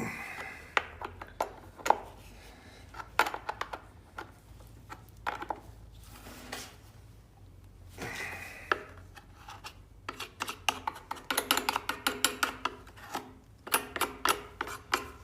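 Metal hand tools clinking and knocking against a Homelite chainsaw as its bar nuts are tightened down over the case cover, with a run of quick rattling clicks near the end.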